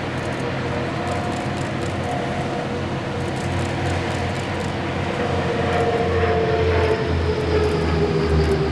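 Aircraft engines droning during a low flypass, growing louder over the second half, with the engine tone sliding down in pitch near the end as the plane passes.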